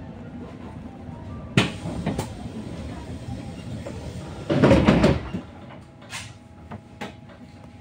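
Inside an electric bus standing at a stop: a sharp click about a second and a half in and another just after, then about four and a half seconds in a loud clatter lasting under a second as the passenger doors operate, over a faint steady hum.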